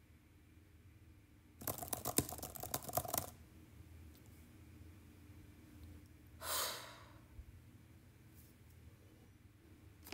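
A short run of quick typing clicks on a tablet's keyboard case, then, about six seconds in, one heavy breathy sigh.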